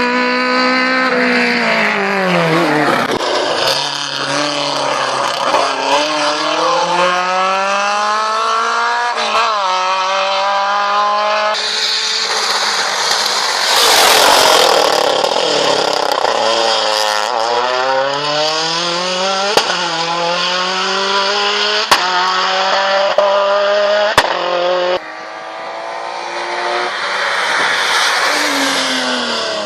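Hill-climb race car engine pulling hard through the gears, its pitch climbing and then dropping at each shift, again and again. About halfway through there is a loud rushing burst, and later there are a few sharp cracks.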